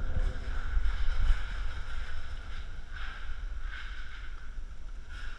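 Wind rumbling on a GoPro action camera's microphone, with a few faint rustles of movement.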